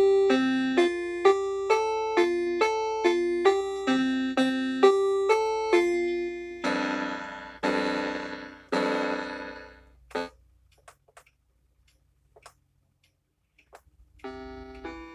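Piano-like electronic keyboard tune played one note at a time, about two notes a second, ending in three long ringing chords. A pause with a few faint clicks follows, and the tune starts again, quieter, near the end.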